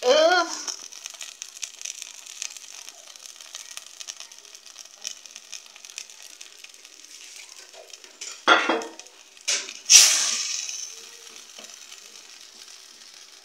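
Tripe and tomato stew sizzling in a steel pot, a steady hiss with small crackles. About eight to ten seconds in, a wooden spoon stirs it with three loud scrapes against the pot.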